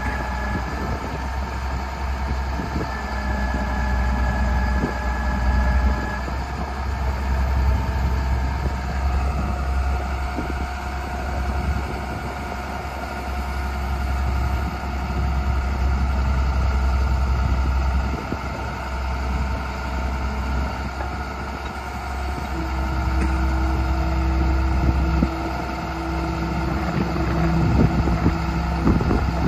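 The 5.9-litre six-cylinder diesel engine of a 1992 International 4700 truck running steadily. Whining tones above the engine shift in pitch every several seconds.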